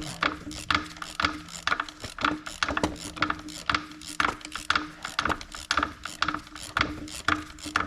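Hand ratchet clicking in a quick, uneven run as the starter mounting bolts are backed out of the engine, over a steady low hum.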